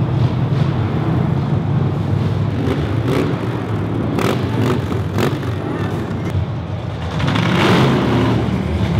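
Engines of several show cars running at low speed as they drive past one after another, a steady low rumble that swells louder for about a second near the end as one revs.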